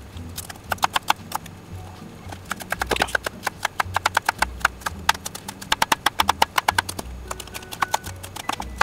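Kitchen knife slicing cucumber into thin strips on a plastic cutting board: quick runs of sharp taps as the blade hits the board, several a second, with short pauses between runs.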